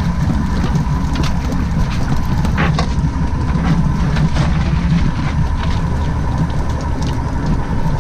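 Wind buffeting the microphone in a steady low rumble on a small boat, with a thin steady whine above it and a few light knocks as bait is handled with a dip net.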